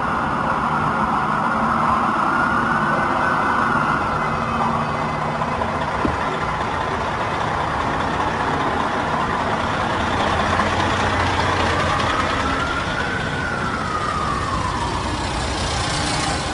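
An emergency-vehicle siren wails slowly, its pitch rising and falling twice, over the steady running of heavy engines and street traffic.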